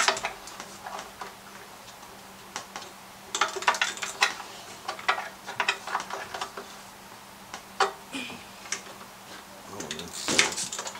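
Socket ratchet clicking in short runs of quick ticks, with light metal taps, as the fuel-tank mounting bolts are worked on.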